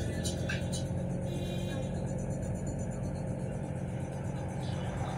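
Steady engine and tyre drone of a car driving along a road, heard from inside the cabin.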